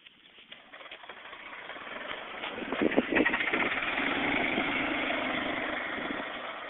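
A vehicle's engine running, growing louder over the first few seconds and then holding steady with a low hum.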